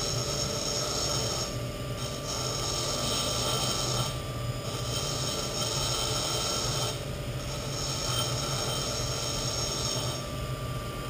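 Pedestal grinder running with a steady hum while a blunt steel centre punch is ground to a point against the stone: a gritty, hissing grind that breaks off briefly a few times as the punch comes off the wheel.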